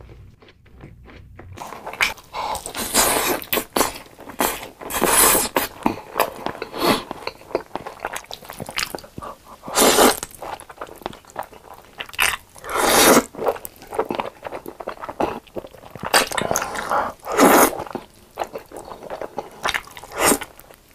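Close-miked eating of jjajangmyeon (black bean noodles): several drawn-out noodle slurps, with wet chewing and smaller mouth sounds in between.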